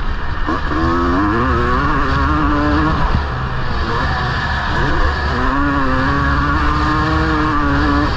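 1999 Honda CR250R two-stroke motocross bike's engine under throttle. Its pitch climbs twice, about half a second in and again around five seconds in, and holds steady after each rise.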